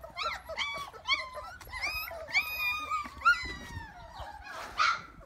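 Belgian Malinois puppies, about three and a half weeks old, whimpering and yelping: a run of short high-pitched calls that slide up and down in pitch. A brief scraping noise comes near the end.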